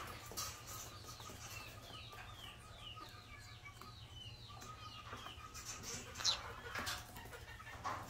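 Parrots calling: a quick run of short, repeated chirps, about two a second, then a few louder, harsh squawks near the end.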